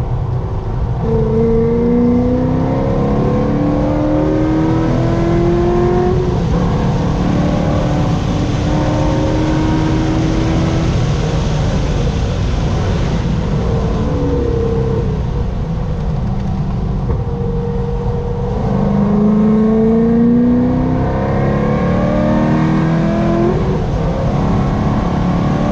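Chevrolet Corvette C6 Z06's 7.0-litre LS7 V8 driven hard on a racetrack: the engine note climbs again and again and drops back between climbs, with a steady rush of noise underneath.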